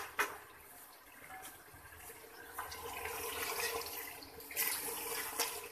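Mutton and gravy sizzling and bubbling in an open aluminium pressure cooker on a gas burner, a faint hiss that swells through the middle and fades near the end. A light click comes just after the start.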